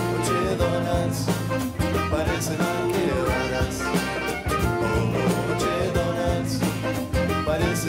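Latin-tinged pop band playing an instrumental passage: saxophones over nylon-string acoustic guitar, electric bass, drum kit and congas with a steady beat.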